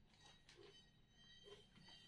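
Near silence: room tone, with a couple of faint small ticks.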